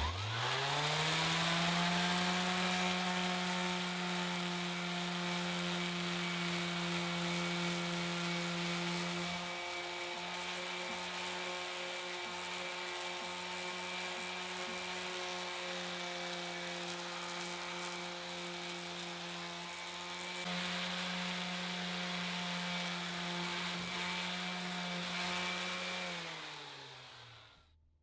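An electric power-tool motor is switched on and spins up to a steady whine. It runs for about 26 seconds, with the sound changing a little twice along the way, then is switched off and winds down with a falling pitch.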